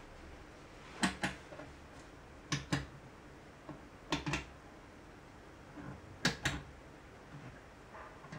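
Illuminated metal push buttons on an escape-room memory box clicking as they are pressed one after another to enter a remembered light sequence: four quick double clicks, spaced about one and a half to two seconds apart, with a few fainter taps between.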